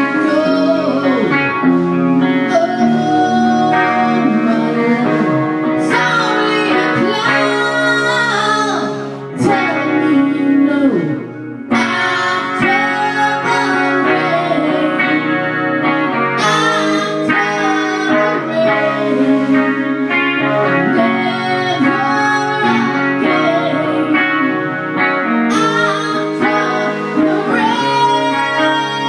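Music: a song played on guitar, with gliding, bending notes over a steady chordal backing.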